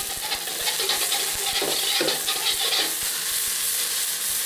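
Quinoa tacu tacu patty frying in oil in a wok: a steady sizzle, with a few short clatters about two seconds in.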